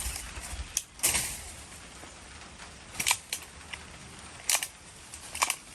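Hand ratchet loppers cutting through branches: several sharp, irregularly spaced snaps and cracks, with the crackle of twigs and foliage in between.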